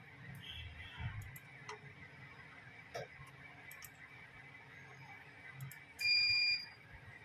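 A single electronic beep about six seconds in: one steady, high-pitched tone lasting about half a second. A low hum and a few light clicks sit under it.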